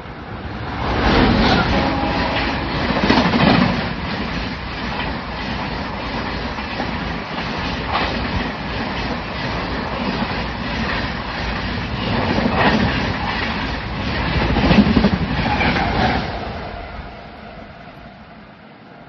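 Mumbai CSMT–Hazrat Nizamuddin Rajdhani Express running past at about 120 km/h: a loud rush of wheel and rail noise with rapid clickety-clack over the rail joints. It swells about a second in, peaks again near the middle-to-late part, and fades away over the last few seconds.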